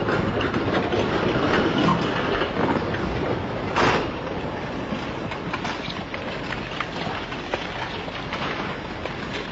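Landslide debris, mud and trees, sliding down a hillside, making a continuous rushing, crackling noise. About four seconds in there is one loud, sharp crack as the slide takes down utility poles.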